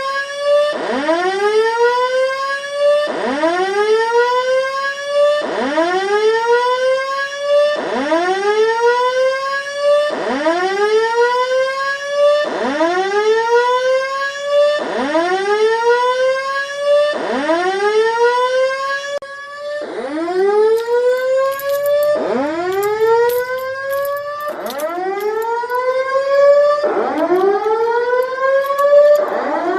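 Simplex voice-evacuation fire alarm sounding its evacuation tone: a loud rising whoop repeated about every two seconds, the signal for occupants to leave the building.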